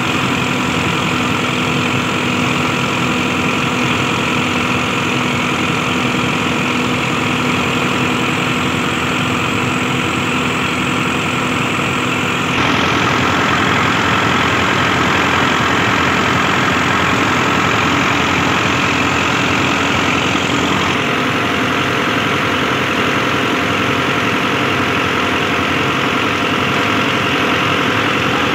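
Belarus tractor diesel engine running steadily on a stationary stand, belt-driving a grain mill through a line shaft, with the mill's machinery turning along with it. The sound becomes a little louder and brighter about twelve seconds in.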